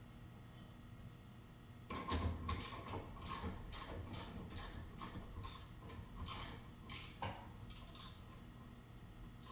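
Metal clicking and scraping, about three sharp clicks a second, starting about two seconds in: a hand tool worked against the parts of a rusty Browning BPS shotgun.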